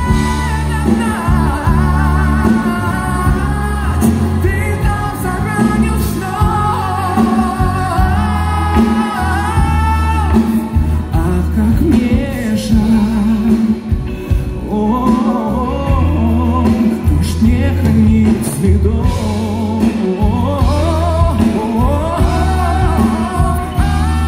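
Live pop ballad: a male singer over band backing with a steady bass and beat, heard from the audience in a concert hall.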